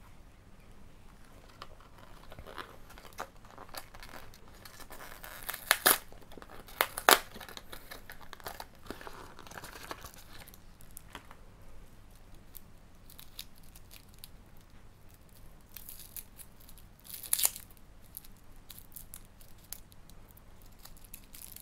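Small cardboard and paper jewellery packaging being handled and opened by hand: irregular rustling and crackling with several sharp snaps, the loudest about a third of the way through and again near the end.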